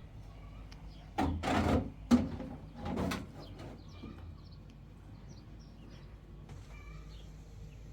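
A sharp knock about two seconds in, between two brief loud noises, with small birds chirping faintly throughout.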